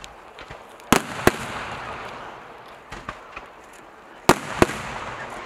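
Aerial fireworks shells bursting: two loud bangs about a second in and two more just after four seconds, each pair about a third of a second apart. A fading crackle and hiss trails after each pair, and a few smaller cracks come near the middle.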